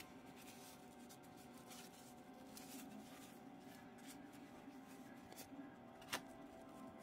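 Faint rustle and slide of a stack of Topps baseball cards being handled and thumbed through, with one sharp card click about six seconds in.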